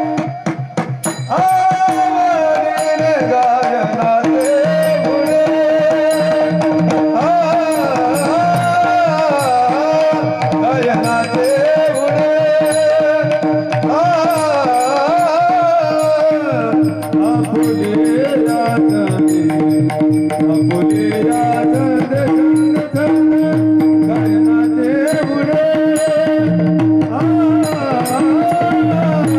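Warkari bhajan: a male voice sings an abhang melody with long, ornamented glides over a steady drone, while small hand cymbals (taal) click and a drum keeps the beat. The cymbal clicks grow denser and more regular about halfway through.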